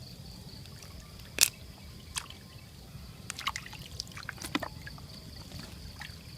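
Water splashing and dripping in small irregular bursts, with one sharp click about a second and a half in. A steady high insect drone runs underneath.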